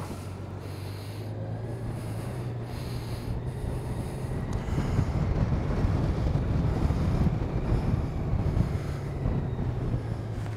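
Honda Gold Wing's flat-six engine running at low speed as the motorcycle rolls slowly, a steady low hum. A louder, rougher rumble comes in around the middle and eases off near the end.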